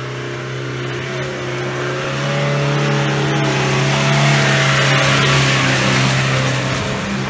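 Land Rover Defender engine running at steady revs under load as it drives up a muddy trail, growing louder as it approaches and passes close by about four to six seconds in, then easing off.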